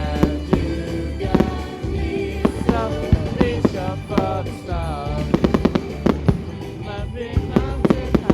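Fireworks going off in a series of sharp bangs and crackles, with a quick cluster about five and a half seconds in, over loud pop music with a singing voice and steady bass.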